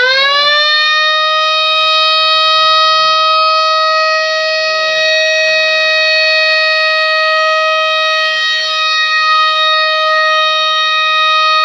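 Fire alarm siren set off by a homemade one-zone fire alarm panel. It winds up quickly in pitch in the first second, then holds one steady, loud, high tone.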